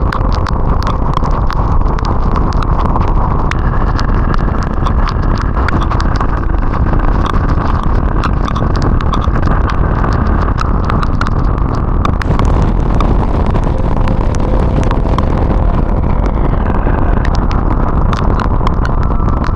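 Riding a motorcycle in the rain, heard through an action camera's microphone: steady wind rumble, with many sharp taps of raindrops hitting the camera.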